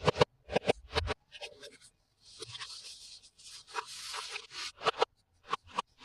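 Toy packaging and plastic toy pieces being handled: rustling and scratching with sharp clicks and taps, a cluster of taps in the first second and more near the end.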